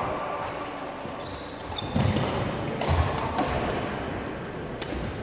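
Sports-hall badminton sounds: several sharp, separate racket-on-shuttlecock hits and footfalls on the wooden court, with a couple of brief high shoe squeaks.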